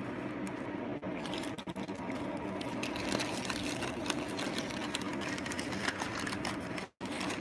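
Tissue paper and packing wrap rustling and crinkling as hands dig through a cardboard box, a steady run of small crackles that cuts out for a moment near the end.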